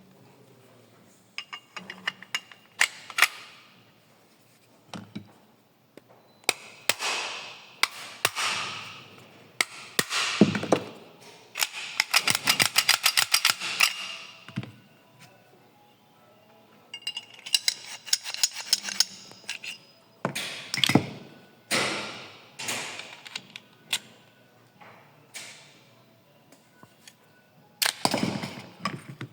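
Metal pistol parts being handled and worked by hand: repeated clicks, clinks and scraping strokes, with a fast run of clicks about midway.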